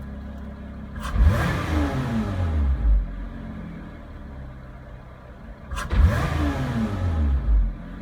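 Lotus Evora 400's supercharged 3.5-litre V6 idling, then revved hard twice, about five seconds apart. Each rev starts with a sudden sharp cough before the revs pick up, then the engine falls back to idle. This is the hesitation or cough on hard throttle that the owner is chasing.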